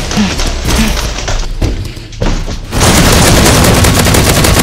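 Booming hits, then from about three seconds in a loud, sustained rapid-fire burst like machine-gun fire, with music underneath.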